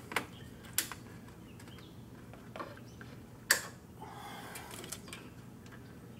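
A few isolated sharp clicks and knocks from hands working an electric fan's plastic push-through mounting retainers and wires on a transmission oil cooler, the loudest about three and a half seconds in, over a faint steady hum.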